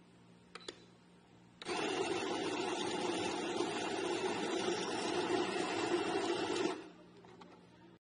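Barista Brothers electric coffee grinder grinding beans into a portafilter: two short clicks from the control buttons, then the motor runs steadily for about five seconds and stops near the end.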